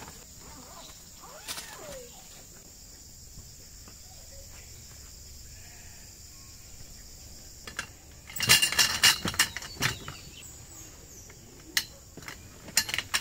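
Clattering and knocking of metal tent-pole sections as camp gear is taken down: a dense burst about eight seconds in, then a few single sharp clicks near the end.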